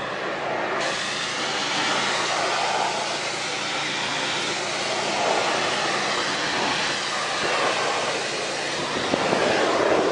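Pressure washer running steadily and spraying water onto deck boards, stripping off softened coating.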